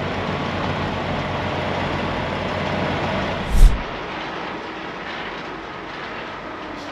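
Semi-truck diesel engine running steadily, with one loud thump about three and a half seconds in, after which the engine sound is quieter.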